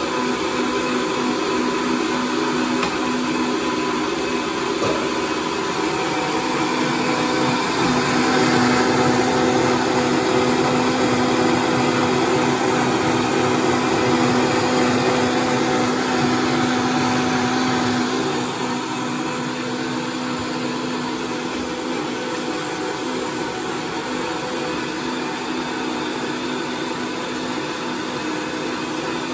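Countertop blender running steadily, puréeing a red pepper hollandaise sauce. It gets louder about a quarter of the way through, then drops back to a lower, even level about two-thirds of the way through.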